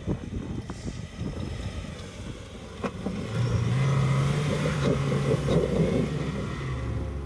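VW Amarok pickup's diesel engine working under load as it climbs a deep rutted gully, with scattered knocks and rattles at first and a louder, steady engine note from about three seconds in.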